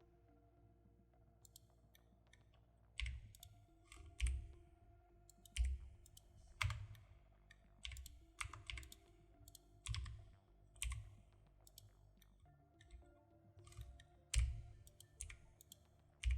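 Computer keyboard keys and mouse buttons pressed one at a time, a sharp click with a dull thud roughly every second, starting about three seconds in, over a faint steady hum.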